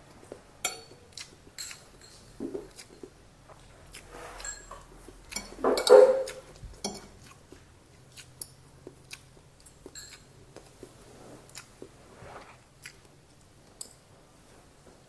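Close-miked eating of fried rice: chewing and mouth clicks, with a metal spoon and fork clicking and scraping on a ceramic plate. A louder burst comes about six seconds in.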